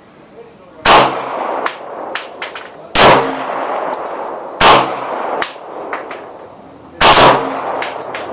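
Four 9mm shots from a Glock 19 pistol, about two seconds apart, each followed by a ringing echo, with fainter sharp clinks between them.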